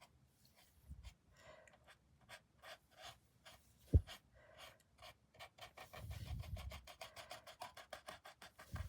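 Paintbrush dabbing and scraping oil paint onto a rough, rock-textured canvas: faint short scratchy strokes that come faster and closer together in the second half, with a single soft thump about four seconds in.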